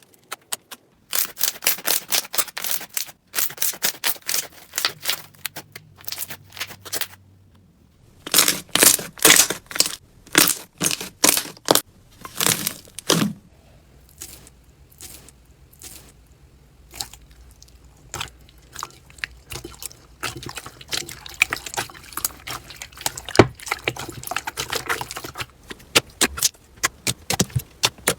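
Slime being squished and stretched: bursts of wet, sticky clicking, crackling and popping.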